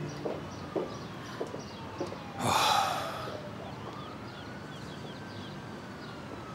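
Outdoor street ambience: a few soft footstep clicks in the first two seconds, a brief whoosh about two and a half seconds in, faint bird chirps, and a distant siren slowly rising and falling in pitch.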